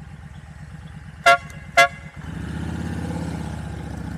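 Two short, loud toots of a vehicle horn about half a second apart, over a motorcycle engine idling. About two seconds in the engine pulls away and runs louder.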